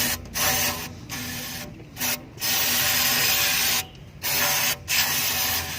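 Repeated bursts of loud hissing spray, starting and stopping abruptly, the longest about a second and a half, over the Nissan Serena's engine running steadily underneath.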